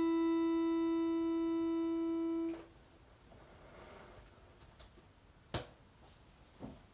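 Piano accordion holding one long, steady final note that cuts off about two and a half seconds in. After that come faint handling sounds and a single sharp click near the end.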